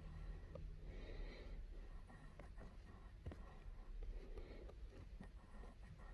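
Faint handling noise of a phone held close up: soft scattered clicks and rubbing over a low rumble.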